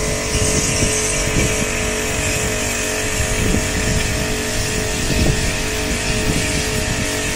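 Steady hum of a running engine, with wind gusting on the microphone.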